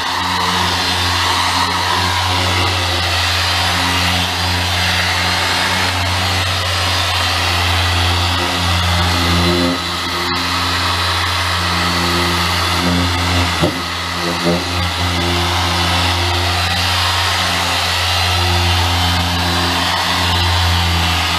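Harbor Freight dual-action polisher running at speed 5, its motor giving a steady low hum as the foam pad works the paint. The hum falters briefly about two-thirds of the way through, then steadies again.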